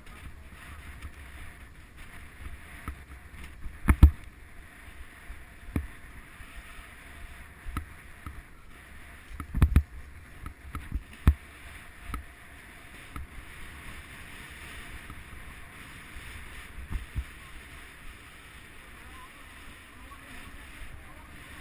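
Skis sliding over packed and rutted snow, a steady hiss with wind rumble on the microphone. Several sharp thumps break through, the loudest about four and ten seconds in.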